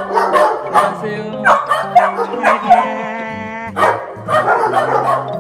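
Many dogs barking and yipping at once, their calls overlapping in a dense, excited chorus, over background music.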